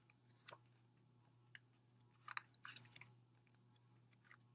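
Faint handling of album paper and card items: a few soft clicks and crinkles over a low steady hum.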